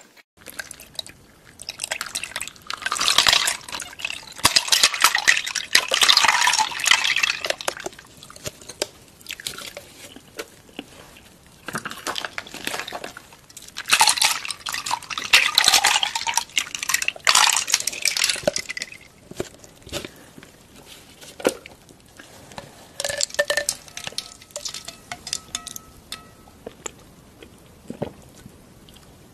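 Milk tea poured and splashing into a large glass bowl in two long stretches, about three seconds in and again about fourteen seconds in. Between and after them come quieter drips, small clinks and sips.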